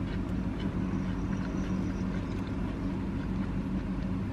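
Steady low engine hum with a few faint crunches of onion rings being chewed.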